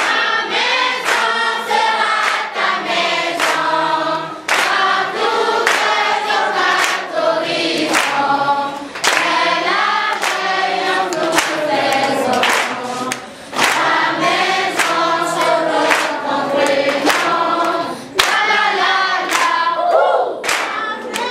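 A group of voices singing together, with sharp percussive beats throughout.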